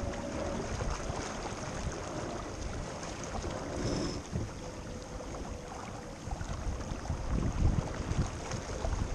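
Wind buffeting the microphone over water noise aboard a small boat, with gusts growing louder about two-thirds of the way through.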